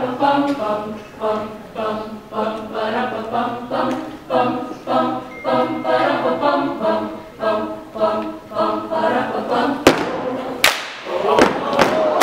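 Mixed choir singing a cappella in short, rhythmic phrases. About ten seconds in, two sharp hits cut across it and the singing breaks into looser, livelier voices.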